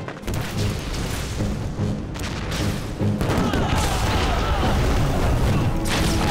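Film battle soundtrack: deep booms and crashing impacts of an army's charge, mixed with dramatic background music. The din grows louder and fuller about three seconds in.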